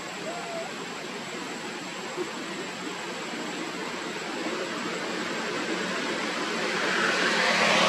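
Steady hiss-like outdoor background noise that grows louder near the end, with a faint short chirp about half a second in.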